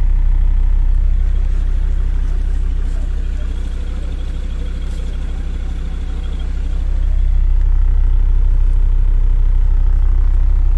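Land Rover Discovery Td5's five-cylinder turbodiesel running at low revs, heard from inside the cab as a heavy, steady low rumble. It eases off a little in the middle and picks up again after about seven seconds.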